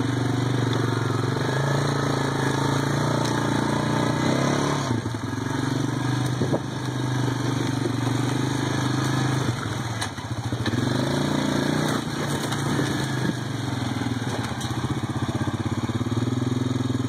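Off-road vehicle engine running steadily at low trail speed, the throttle easing off briefly a few times.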